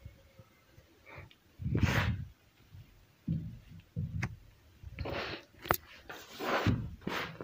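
Hands crushing and squeezing crumbly black-dyed gym chalk and cornstarch, giving soft crunches and powdery hisses in irregular bursts, the loudest about two seconds in and several more close together over the last two and a half seconds.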